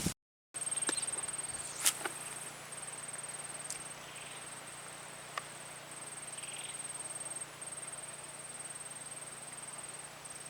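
An insect, such as a cricket, trilling steadily on one high note, with a few brief breaks and a few light clicks.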